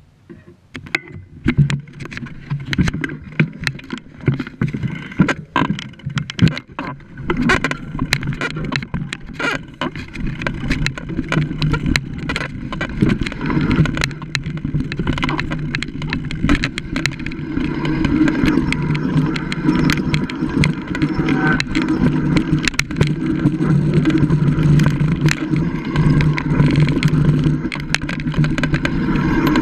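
Mountain bike ridden fast over a rough grassy and dirt trail, recorded by a GoPro on the bike: rattles and knocks from the bike over bumps, over a rumble of tyres and wind. The rumble grows louder in the second half as the speed picks up.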